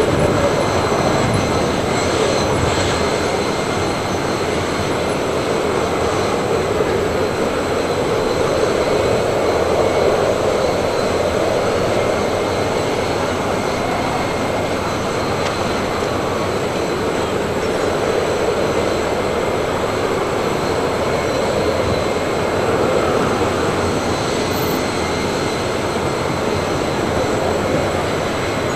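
Steady engine noise on an airport apron: a continuous rumble and hiss with faint, steady high whining tones, unbroken throughout.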